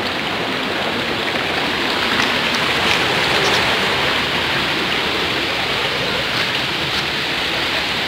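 Shallow rocky stream running over and between stones, a steady rush of water.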